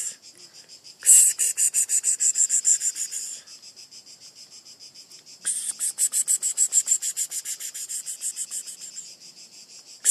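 A singing insect's high, rapidly pulsed buzz. It comes in two long bursts of a few seconds each, with quieter pulsing between them.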